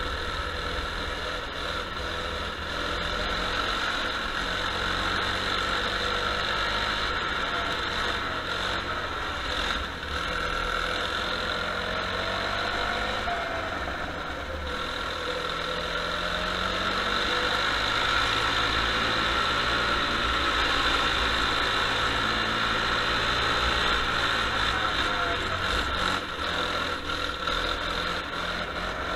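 Racing kart engine running, its pitch rising and falling as the throttle is worked on and off around the wet track, with a low rumble from wind on the microphone.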